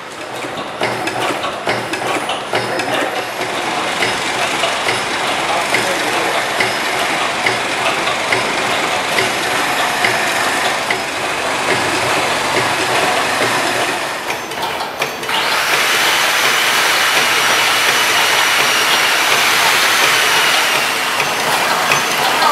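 Automatic paste filling and sealing sachet packing machine running: fast, even mechanical clicking and clatter from its moving parts. About two-thirds of the way through, a louder steady hiss joins in.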